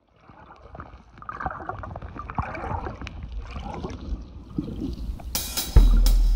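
Water gurgling and bubbling with small irregular clicks, fading in from silence. About five seconds in, music with drums and guitar starts loudly over it.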